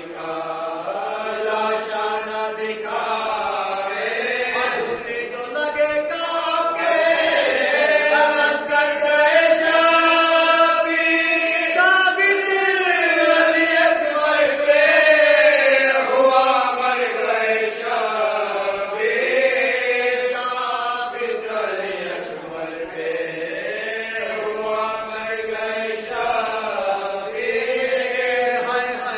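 A group of men's voices chanting an Urdu marsiya in chorus, unaccompanied, in long held notes that waver up and down in pitch.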